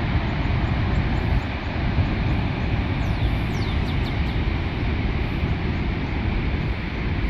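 Steady rushing roar of Niagara Falls mixed with wind buffeting the microphone, with a few short high chirps about three seconds in.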